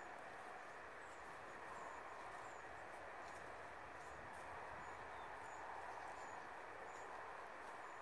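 Quiet countryside ambience: a steady soft rushing noise, with a faint high chirp repeating about every half second.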